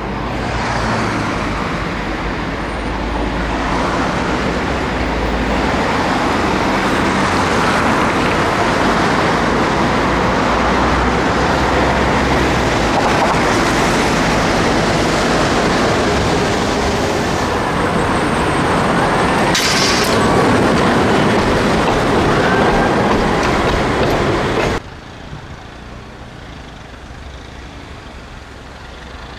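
City street traffic: vehicles passing close by in a loud, steady wash of road noise. About 25 seconds in it cuts off suddenly to a much quieter steady hum.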